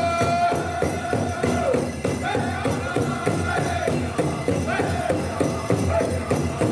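Powwow drum group singing a dance song in high voices over a fast, even drumbeat.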